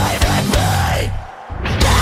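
Heavy rock music with distorted guitars and drums, cutting out briefly a little past the middle and then crashing back in.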